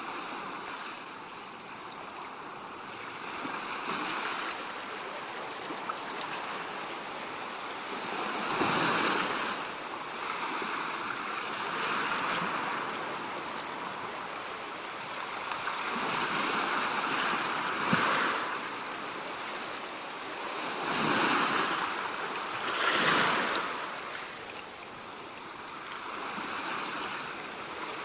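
Ocean surf: waves breaking and washing in as a continuous rush that swells and eases every few seconds, with stronger surges about a third of the way in and twice near the end. A single short snap sounds about two-thirds of the way through.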